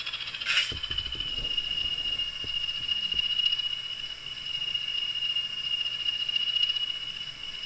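Sound decoder of a CP 1400 series model diesel locomotive, playing engine sound through its small onboard speaker. A steady high whine falls in pitch during the first second, then holds. A few light clicks come in the first seconds.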